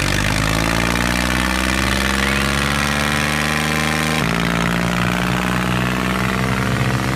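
Diesel tractor engine running steadily, its pitch creeping slightly upward, with an abrupt change in the engine note about four seconds in.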